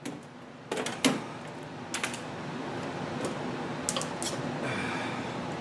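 Sharp clicks and knocks of tools and small metal parts being handled while fitting go-kart steering parts: several separate clinks in the first four seconds, then a short rattling scrape near the end.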